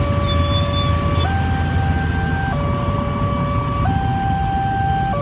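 Railway level-crossing warning alarm sounding its two-tone signal, switching between a lower and a higher tone about every second and a quarter, over the low rumble of many motorcycle engines running.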